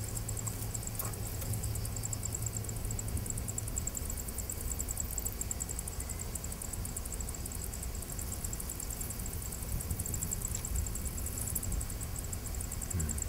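Field ambience: insects chirping in a fast, steady, high-pitched pulsing, over a continuous low rumble.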